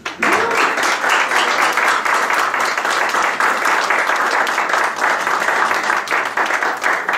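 A crowd applauding, breaking out suddenly and continuing at an even level.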